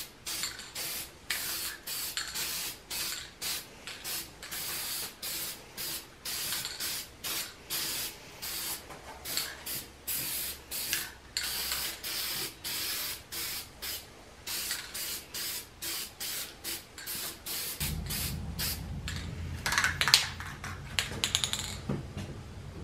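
Aerosol can of Rust-Oleum High Heat black enamel spraying in short hissing bursts, about two a second, coating steel rods and rebar pins. The spraying stops near the end, when a low rumble and a few knocks come in, the loudest about twenty seconds in.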